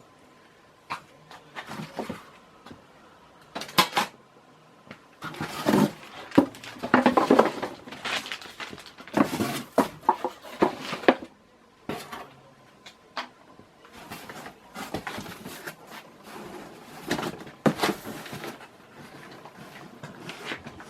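Metal ceiling-fan parts being handled, with irregular clinks, knocks and scraping, busiest in the middle.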